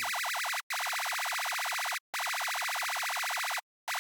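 Riddim screech lead from the Serum software synth: a bright, harsh, high-pitched tone whose pitch is rapidly wobbled by an LFO on the oscillator's coarse pitch, giving a fluttery sound. It plays as a short note and then held notes of about a second and a half each, with brief gaps between them.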